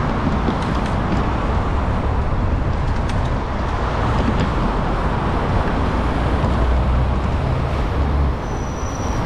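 Steady road traffic noise with a low rumble, and a brief high squeal near the end.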